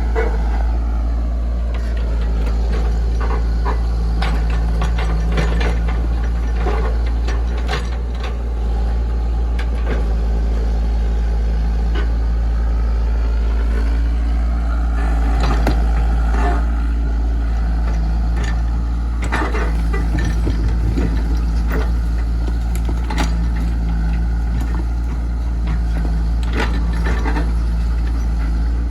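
Komatsu PC68 excavator running: its diesel engine hums steadily under a whine that sweeps down and back up several times, with scattered metallic clanks and knocks.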